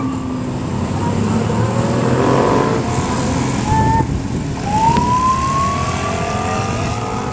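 Police siren sounding: a couple of short blips, then a slow rising wail starting about two thirds of the way in, over the engines of passing motorcycles and vehicles.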